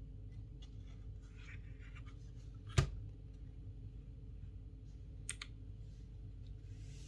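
Keychron K3 V2 ultra-slim mechanical keyboard with clicky Gateron Blue switches: a few scattered keystroke clicks, a much louder click near the middle and a quick double click about five seconds in, over a steady low hum.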